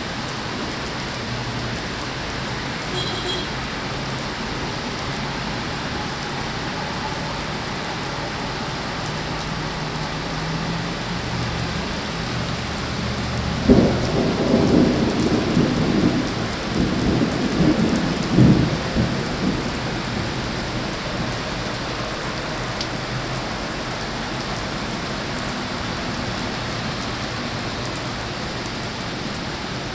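Steady rain falling throughout. About halfway through, a sudden clap of thunder rolls into rumbling thunder lasting around six seconds, with a second loud peak near its end.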